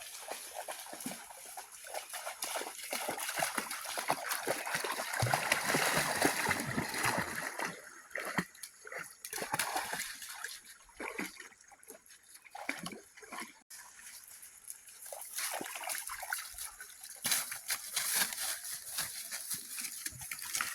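Water splashing and sloshing from swimming, irregular and loudest in the first half.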